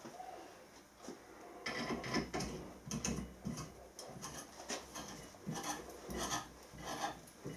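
Hand tap being turned in a tap wrench, cutting a thread through very hard bronze-steel alloy: irregular scraping, rasping strokes that start about a second and a half in.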